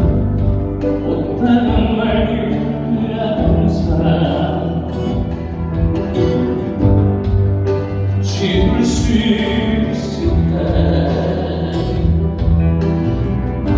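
Live music between sung verses of a Korean ballad: an instrumental passage with sustained chords over held bass notes.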